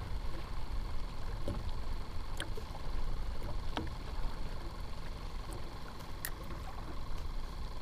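Wind rumbling on the microphone and small waves lapping at a kayak hull on choppy open water, with a few faint clicks scattered through.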